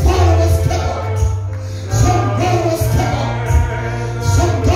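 Live gospel praise music through a PA: singers on microphones over a band with a heavy bass line and bright percussion strokes at a regular beat.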